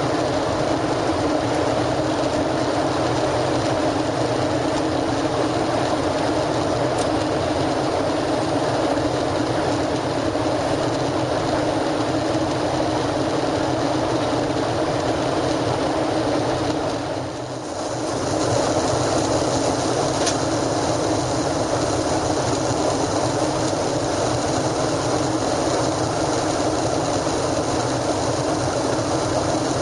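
Steady cabin noise of a Boeing 737-800 in flight: the rush of its CFM56 turbofans and airflow, heard from inside the cabin. It dips briefly a little past halfway through, then returns to the same level.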